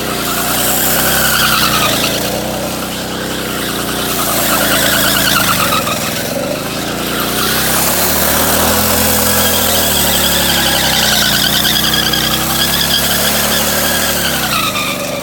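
An engine running with no break, its pitch slowly rising and falling over several seconds.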